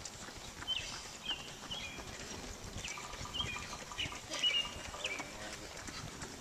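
Footsteps of runners slapping the asphalt road as they pass, with a series of short high chirps about every half second.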